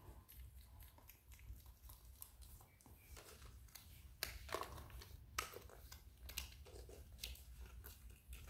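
Faint clicking and crinkling of plastic surprise-egg capsules and small plastic toy cars as an otter noses, mouths and pushes them, with a few louder clicks about halfway through.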